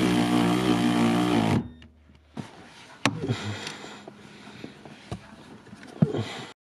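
Milwaukee cordless power tool's motor running steadily as it drives in the lower bolt of a steering column shaft, stopping suddenly about a second and a half in. Then a few sharp clicks and knocks of tools and parts being handled.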